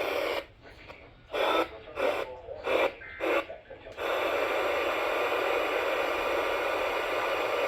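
Radio static from a receiver: a few short crackly bursts, then a steady hiss from about four seconds in.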